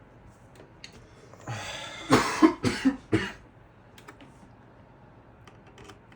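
A person coughing, a short fit of about four coughs a couple of seconds in, with a few faint clicks from small parts being handled.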